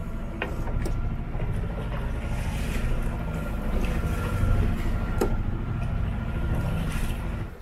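Wind buffeting the microphone and the sea rushing past a sailing trimaran under way, a steady low rumble with a few light clicks over it.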